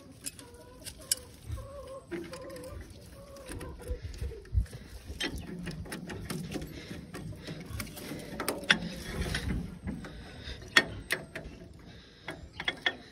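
Chickens clucking, with wavering drawn-out calls in the first few seconds, then scattered sharp clicks and knocks.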